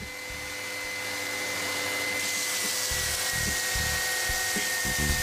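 Bench belt sander running with a steady whine, getting louder over the first couple of seconds. About two seconds in, apple-root wood is pressed to the belt and a rasping sanding hiss joins, with the motor's pitch dipping slightly under the load and a few low knocks of the workpiece near the end.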